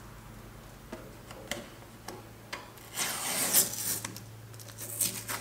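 A few light clicks, then rubbing and scraping strokes about three seconds in, as the edge of a freshly drilled half-inch hole in a canoe's end cap is cleaned up by hand.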